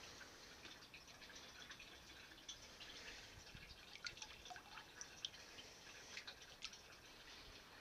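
Faint, scattered small drips and plops on the water as earthworms are dropped one at a time into a fish tank.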